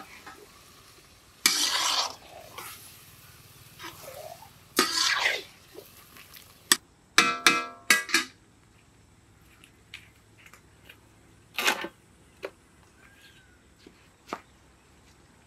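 Steel spatula scraping and clanking against a large iron kadai while thick masala is stirred, in several separate strokes over the first half, one with a ringing metallic clang. After that, only a few faint knocks.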